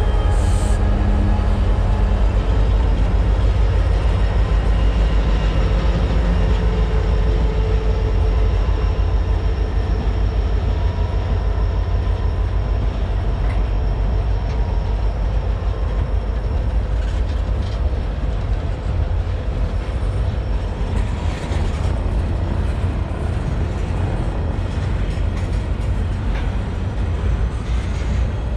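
Freight train cars rolling slowly past: a steady low rumble of wheels on rail, with faint high steady tones over it and a few light clicks in the second half.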